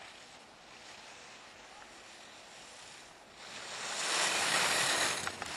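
Skis scraping and hissing over packed snow as a racer carves past close by, building from about three seconds in and loudest a second or two later.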